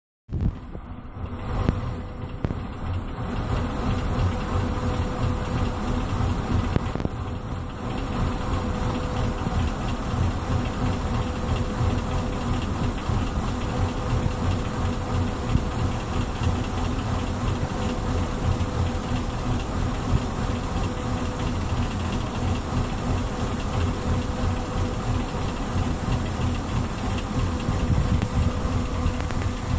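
Mercury MerCruiser 350 Mag V8 marine engine idling steadily, with a thin steady tone above the engine note; this is the running sound its owner calls bad.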